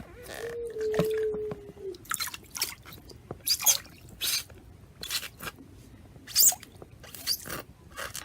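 Water splashing and dripping in short, irregular bursts as toys are handled in a container of bath water, about a dozen splashes. A steady, held tone sounds for the first two seconds.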